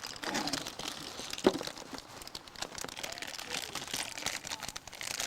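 Crinkling and rustling handling noise made of many small crackles and clicks, with one sharper knock about a second and a half in.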